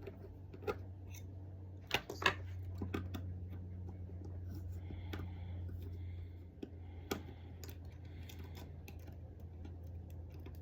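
Scattered small clicks and taps of a precision screwdriver and small parts being handled while an iPhone 6 is unscrewed and taken apart, over a steady low hum.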